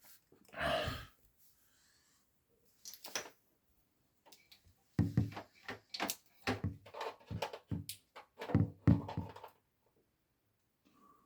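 Handling noise as a fridge's plug is fitted into an extension lead: a short rustle near the start, then a run of knocks, clicks and thunks, thickest in the second half.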